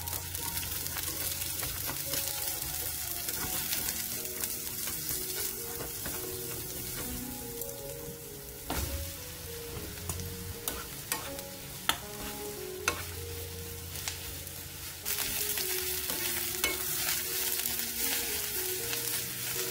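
Sliced onion and eggplant sizzling as they stir-fry in hot oil in a nonstick frying pan, with a few sharp clicks of the stirring utensils against the pan.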